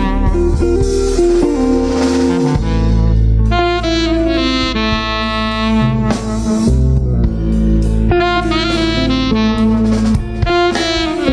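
Live jazz: an alto saxophone plays a quick line of changing notes, backed by bass and drum kit, with some electric guitar.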